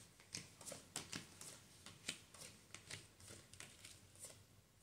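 Faint, irregular light clicks and soft rustling of tarot cards being handled, several a second.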